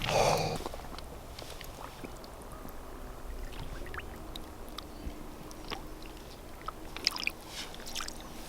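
Soft water sloshing and lapping with scattered small clicks and knocks, and a short noisy rush right at the start, as a caught carp is handled at the water's edge before release.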